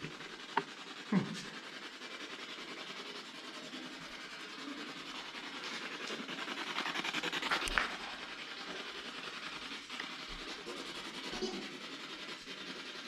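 Steady faint hiss with two soft clicks about half a second and a second in, then a rustling scrape that swells between about six and eight seconds, peaking in a sharp click.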